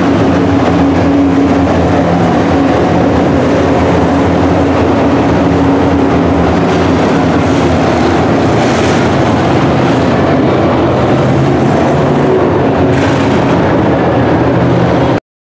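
Several dirt-track race trucks' engines running at speed around the oval, a loud, steady drone of overlapping engines that cuts off suddenly near the end.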